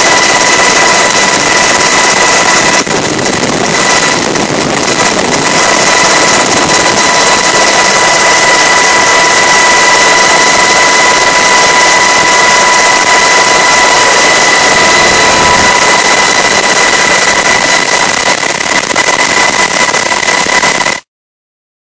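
Coast Guard MH-60 Jayhawk helicopter in flight: a loud, steady drone of turbines and rotor with a steady high whine over it, cutting off suddenly near the end.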